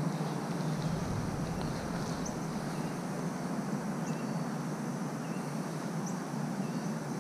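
Steady outdoor background noise with faint short high chirps every couple of seconds.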